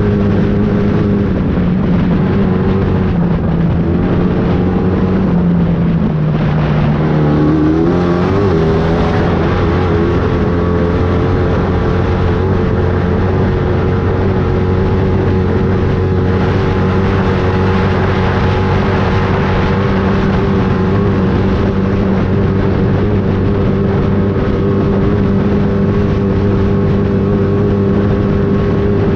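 Off-road race vehicle's engine running steadily under load, its pitch dropping about five seconds in and climbing back up a couple of seconds later.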